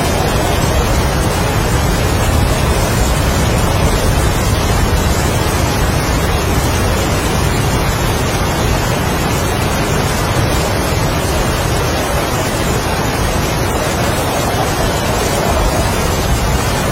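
Heavy rain and strong wind in a steady, loud roar with a deep rumble underneath, the wind swelling in a gust near the end.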